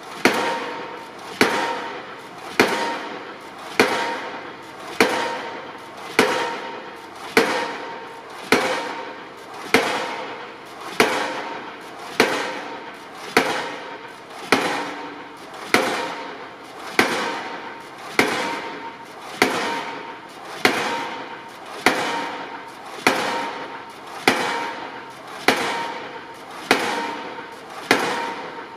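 Pile-driving rig's impact hammer pounding a steel double-T (H-) beam into the ground, one sharp bang about every 1.2 seconds in an even rhythm, each blow ringing and dying away before the next.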